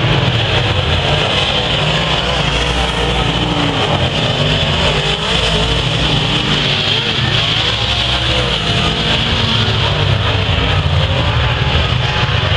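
Several dirt-track race cars running hard around the oval: continuous loud engine noise whose pitch wavers up and down as they go through the turns and down the straights.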